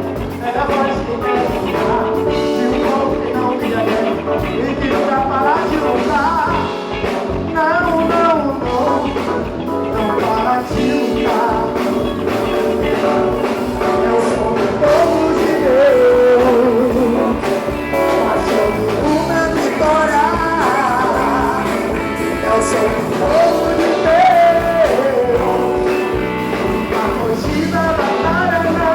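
Brazilian gospel band playing a rock-style song, with a lead melody line that bends and slides in pitch over a steady band of drums, bass and guitars.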